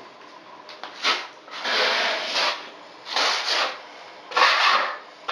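Tape along the edge of a bathtub being rubbed and pressed down by hand, in four scraping strokes, the second the longest.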